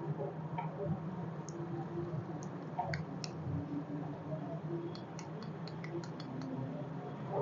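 Light, sharp clicks and taps from small parts being handled during a repair. There are a few scattered clicks, then a quick run of about eight near the middle, over a faint steady hum.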